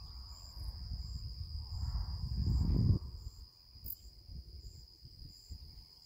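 Steady high-pitched insect chirring, with a low rumbling noise in the first half that swells just before three seconds in and then falls away.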